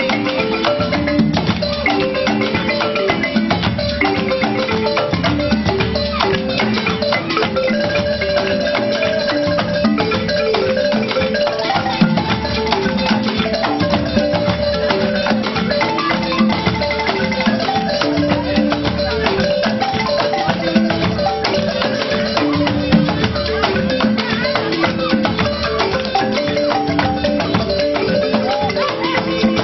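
Balafon, a West African wooden-keyed xylophone with gourd resonators, played in a fast repeating melodic pattern of short struck notes, with other percussion keeping time.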